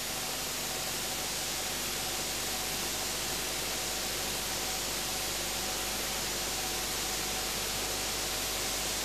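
Steady hiss with no distinct events, strongest in the high range: the background noise of a camcorder recording.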